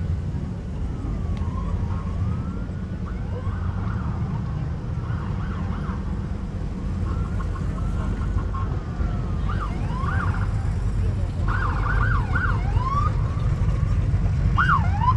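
A police siren wailing in slow rising and falling sweeps, switching to faster sweeps and growing louder from about ten seconds in as it approaches. Under it is the low rumble of parade cars driving slowly past.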